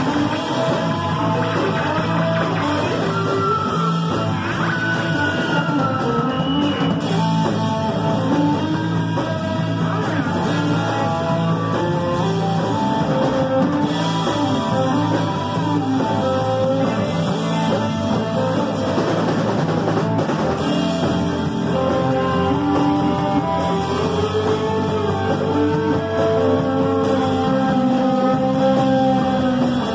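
A live band playing rock music, with electric guitar and hand drums.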